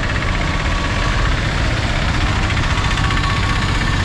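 Auto-rickshaw engine running, steady and loud at close range.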